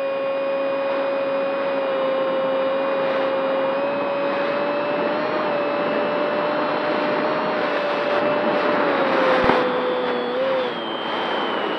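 Radio-controlled model airplane's motor and propeller whining steadily, heard from the onboard camera with a rush of air. The pitch sags a little late on and dips near the end as the throttle eases, with one sharp click about nine and a half seconds in.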